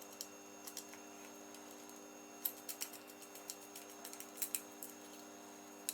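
Scattered light clicks and ticks of small parts and wire being handled while connecting wires to an electrical fitting's terminals, over a faint steady hum.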